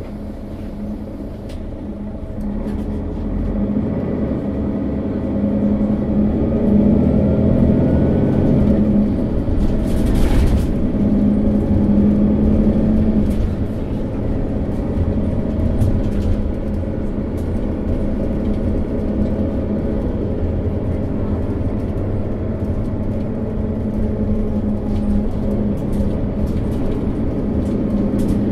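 Setra S415 NF diesel city bus accelerating, its engine growing louder over the first few seconds with a rising whine. A brief hiss comes about ten seconds in, and the bus then runs on steadily.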